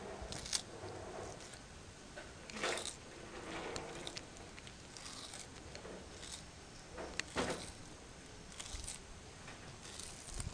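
African spurred (sulcata) tortoise biting into a bitter melon (goya), with irregular crisp crunches and tearing a second or two apart as its beak works through the bumpy rind.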